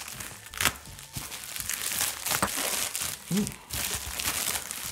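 Plastic mailing bag being torn open and crinkled by hand, with a few sharp rips among the rustling.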